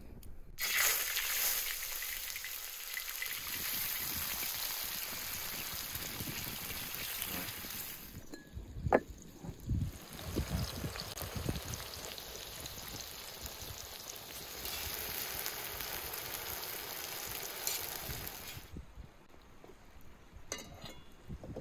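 Sliced tomatoes sizzling as they go into a hot metal pan: a steady hissing sizzle that starts suddenly, breaks off for a couple of seconds midway where there is one sharp knock, then comes back and stops a few seconds before the end.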